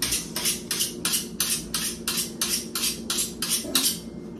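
Kitchen knife being sharpened: an even rhythm of about three scraping strokes a second of the blade drawn across a sharpener, stopping near the end. The blade is being sharpened because it has lost its edge.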